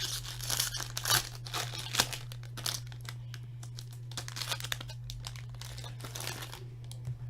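Plastic wrapper crinkling and tearing as a pack of trading cards is handled and opened: a dense run of crackles for the first few seconds, quieter rustling, then another brief flurry near the end. A steady low electrical hum runs underneath.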